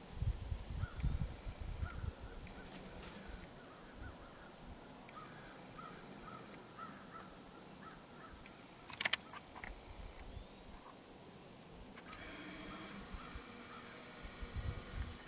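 Steady high-pitched insect drone over an open field. Short chirps repeat about twice a second during the first few seconds, and a brief harsh call comes about nine seconds in. Low handling bumps sound at the start and again near the end as the camera moves.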